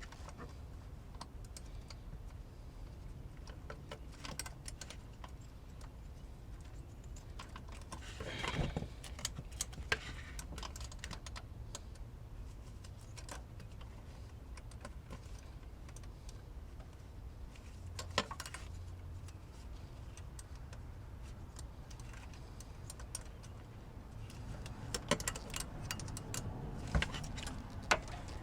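Scattered small metallic clicks and clinks of hand tools and a pry bar working the fan clutch's mounting nuts and water pump shaft, with louder clusters about a third of the way in, about two thirds in, and near the end.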